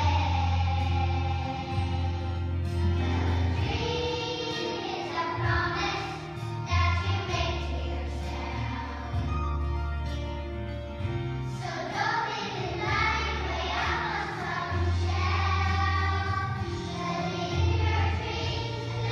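A class of young children singing together as a choir over instrumental accompaniment with a steady low bass line.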